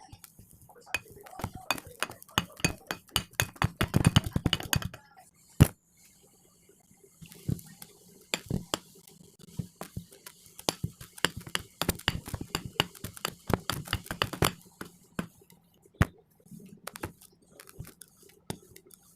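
Kinetic sand being worked, giving fast runs of crisp crunching clicks with a few sharp single clicks between them.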